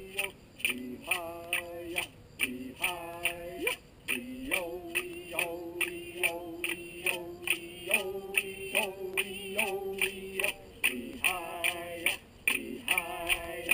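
A voice chanting a song in long held notes that slide up into each phrase, over a steady beat of sharp percussive strikes about two to three a second.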